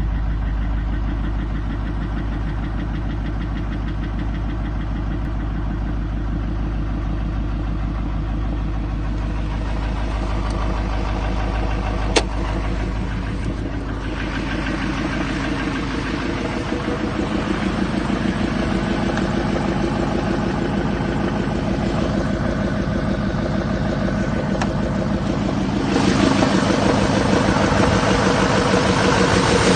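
2007 6.6L LMM Duramax V8 turbo-diesel idling with a steady knock, the sign of a spun crankshaft bearing. It grows louder around the middle and again near the end, with one sharp click about twelve seconds in.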